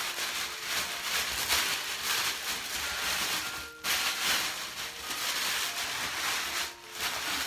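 White packaging wrap crinkling and rustling as a jar is unwrapped by hand. The rustling goes on almost without a break, with one short gap a little before four seconds in.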